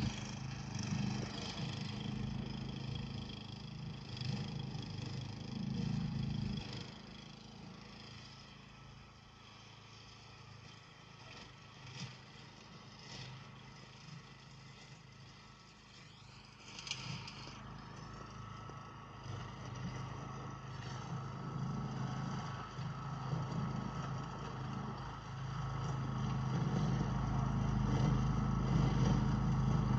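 Walk-behind dethatcher's small engine running steadily. It grows quieter for several seconds as the machine works away, then louder again as it comes back in the second half.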